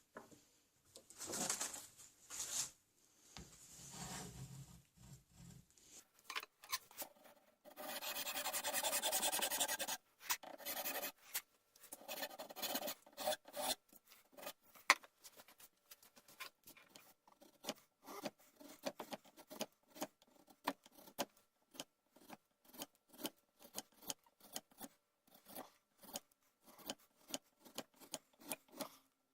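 A hand tool rasping on a piece of horn, cutting off the marked end of the rifle's horn muzzle cap. There is one longer steady rasp about eight seconds in, then a long run of short, quick strokes, about two or three a second.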